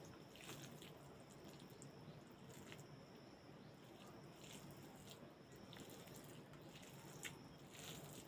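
Faint, quiet squishing and small wet clicks of fingers mixing cooked rice and greens on a plate, with one slightly louder click near the end.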